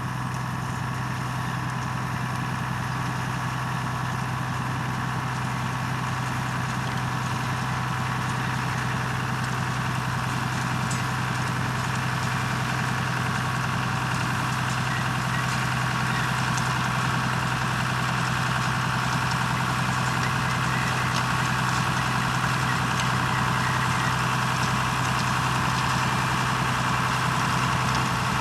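Heavy diesel potato-harvesting machinery running steadily at constant engine speed, a deep hum under a dense mechanical hiss. It grows slightly louder over the stretch.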